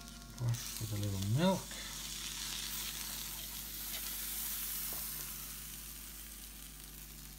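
Pastry cases sizzling on the hot plates of an electric pie maker: a steady, even hiss.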